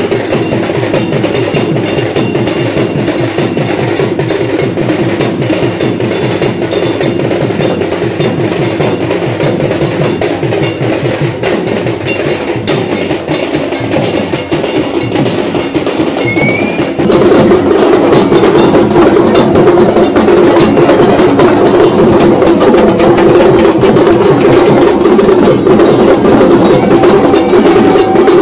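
A drum beaten in a fast, steady rhythm of sharp strokes for dancing, suddenly louder a little past the middle.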